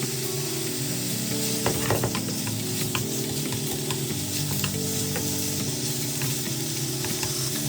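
Pork belly and tofu sizzling as they are stir-fried in a pan, with a few sharp clicks of a spatula against the pan.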